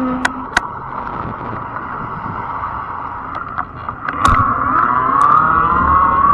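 Fat-tire e-bike's electric motor whining steadily over tyre and wind noise, with scattered clicks and knocks. About four seconds in the whine grows louder, and its pitch dips and then climbs before holding steady.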